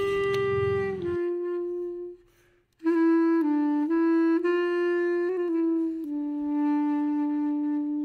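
Background music: a slow solo melody of long held notes on a single wind-like instrument, breaking off for about half a second a little past two seconds in and then resuming.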